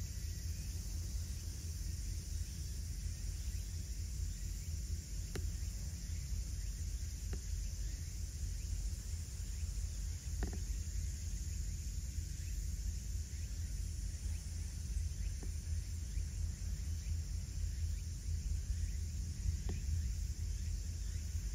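Outdoor ambience: a steady low rumble with a faint high hiss over it and a few faint, scattered ticks.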